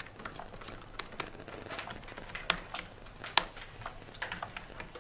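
Irregular clatter of keys as reporters type on laptop keyboards, with two sharper key strikes a little past the middle.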